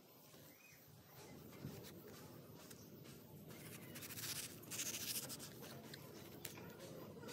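Knife cutting into the skin and flesh of a whole mango: faint scratchy slicing strokes, with a louder scraping stretch about four to five seconds in.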